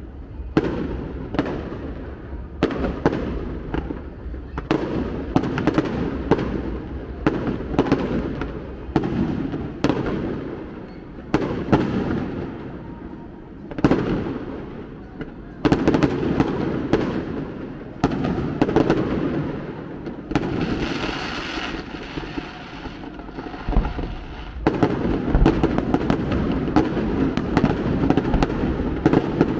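Aerial fireworks shells bursting in quick, irregular succession, each bang followed by a rolling echo. A steady hiss lasts a few seconds about two-thirds of the way through.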